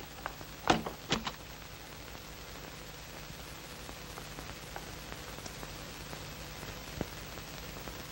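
A few soft knocks in the first second or so, then a steady hiss with a low hum underneath: the background noise of an old film soundtrack.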